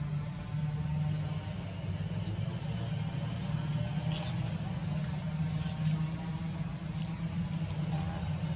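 A steady low hum, with a few faint high clicks about four and six seconds in.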